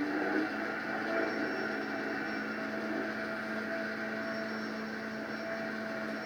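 Mini jet boat's small engine running at a steady speed, a constant drone that holds one pitch.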